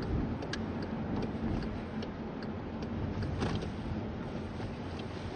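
Car's turn-signal indicator clicking at an even pace, about two or three clicks a second, over low engine and road rumble heard inside the cabin while the car slows to turn.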